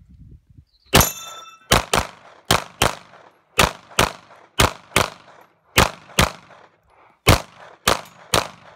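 Rapid pistol fire, about sixteen shots, mostly in quick double-taps, starting about a second in. A brief metallic ring follows the first shot.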